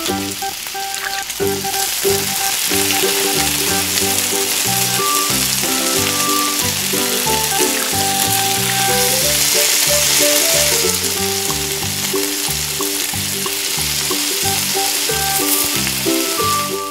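Hot oil sizzling and bubbling steadily as breaded food deep-fries in a small wok, with background music underneath.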